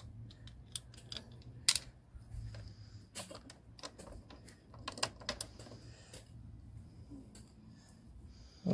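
Scattered light clicks and taps of a composite cup holder and its stainless steel bracket being handled and fitted against a trike's plastic side panel, with one sharper click a little under two seconds in, over a low steady hum.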